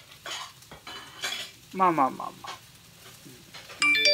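Chopped onions frying in a frying pan, sizzling with short bursts of crackle. Near the end a loud electronic chime of a few steady tones sounds.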